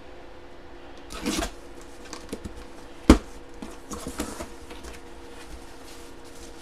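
Handling noises: a short rustle about a second in, then one sharp knock about three seconds in, followed by a few lighter taps. A faint steady hum sits underneath.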